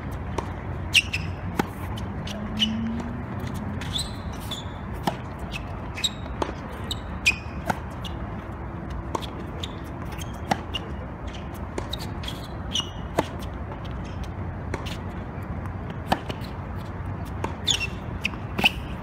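Tennis rally: sharp pops of the racket striking the ball and the ball bouncing on the court, irregularly spaced about a second apart, with short squeaks of tennis shoes on the court surface.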